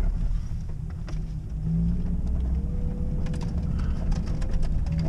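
Steady low rumble of engine and tyres inside the cabin of a Suzuki Grand Vitara driving a rough dirt track. A faint engine note climbs slightly in pitch about halfway through, and scattered light knocks and rattles come near the end.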